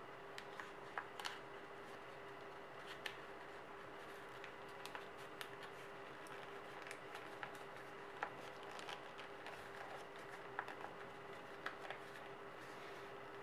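A sheet of white paper being folded and creased by hand into an origami claw: scattered short crinkles and crackles, the sharpest about a second in and again around eight, ten and a half and eleven and a half seconds in, over a steady faint hiss and low hum.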